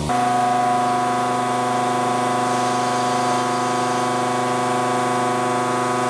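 Vertical machining center face milling carbon steel with a 60 mm face mill at 1,500 rpm and 5 mm depth of cut: a steady cutting tone made of several fixed pitches, over a hiss.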